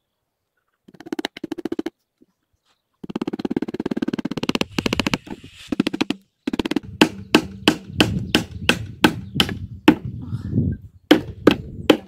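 A hammer driving nails into the wooden bottom of a birdhouse. Quicker, softer bursts of tapping in the first half give way to a steady run of sharp blows, about three a second.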